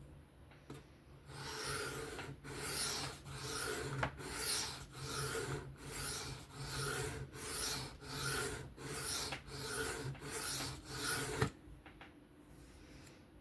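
Steel knife blade drawn freehand across a sharpening stone in about thirteen even, rhythmic scraping strokes. The strokes start about a second in and stop shortly before the end.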